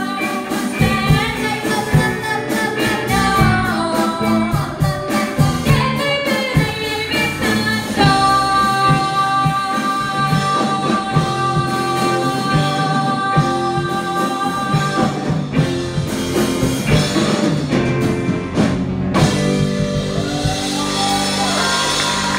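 Live rock band playing with lead vocals over electric guitars, bass, keyboard and drum kit, heard through an audience phone mic in a club; a long held note runs from about eight seconds in.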